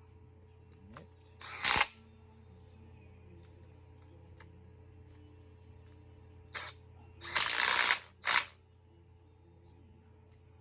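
Hand socket ratchet clicking in short runs, a brief one about a second and a half in and two more around seven to eight and a half seconds in, as cylinder head bolts are run down snug.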